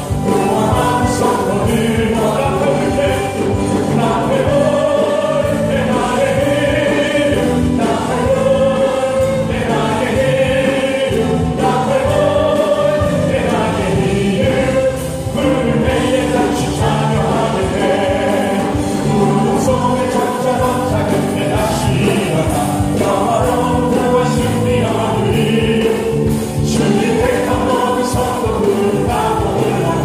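Live church praise team singing a Korean gospel hymn through the sound system, a man's lead voice with women's voices, over band accompaniment with a steady beat.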